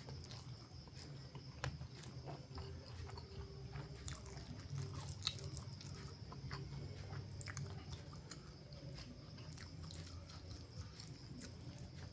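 Close-miked chewing and mouth sounds of someone eating spicy chicken liver and gizzard: irregular small wet clicks and smacks, with one sharper click about five seconds in.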